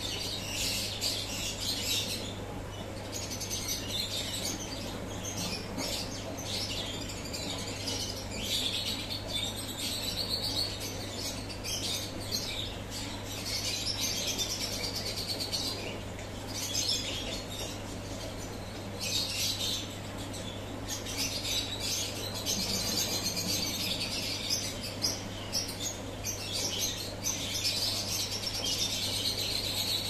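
Small birds chirping and twittering almost continuously, with short pauses, over a steady low hum.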